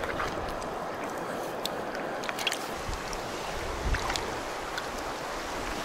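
Shallow river water rushing and lapping over stones close to the microphone, with a few short splashes as a large rainbow trout is let go and swims off.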